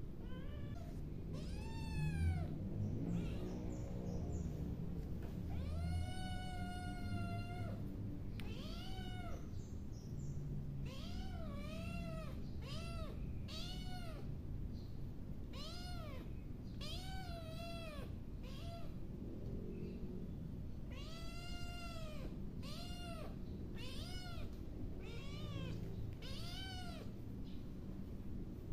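Young domestic cat meowing over and over: about seventeen high, rising-and-falling meows, two of them longer drawn-out calls, over a low steady rumble.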